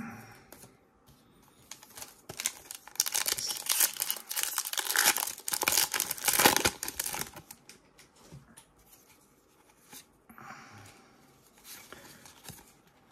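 Foil wrapper of a Pokémon trading card booster pack being torn open and crinkled by hand, loudest from about two to seven seconds in. Softer rustling follows near the end as the cards are handled.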